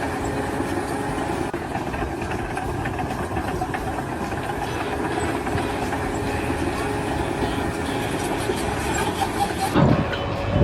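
Steady running noise of heavy machinery or a vehicle, with a louder thump near the end.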